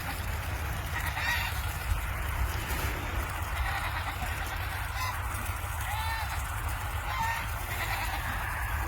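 Geese honking: several short calls, spaced irregularly, over a steady low rumble.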